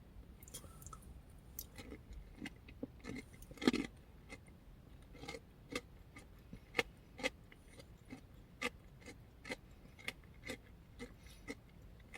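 A person chewing a mouthful of granola yogurt parfait: an even run of small crunchy clicks about twice a second, with a louder knock about four seconds in.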